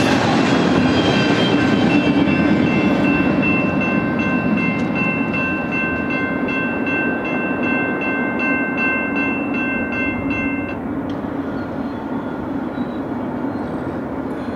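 The tail end of a double-stack container train rolling through a grade crossing and pulling away, a steady rumble throughout. Over it the crossing's warning bell rings with evenly repeated strikes, then stops about three-quarters of the way through as the gates begin to lift.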